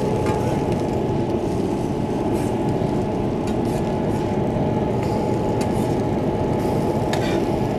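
Downdraft ventilation fan of an EVO ventless griddle running steadily, a low rushing noise with a faint constant hum as it pulls air and steam across the griddle surface. A few light clicks of a metal spatula on the steel griddle top as slices of French toast are flipped.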